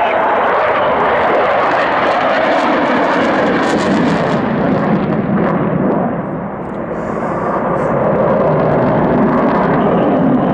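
Fixed-wing aircraft flying past, a loud steady engine noise that dips briefly about six seconds in and then builds again.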